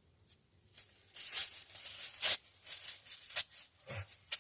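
Packaging being handled: irregular rustling and crinkling of wrapping, with a few sharp clicks.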